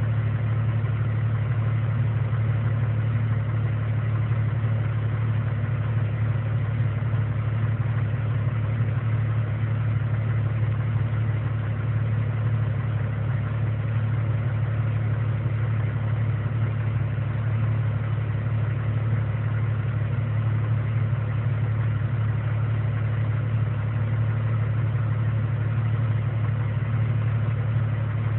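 1999 Jeep Cherokee's 4.0-litre straight-six engine idling roughly. The drone stays steady, with no revving.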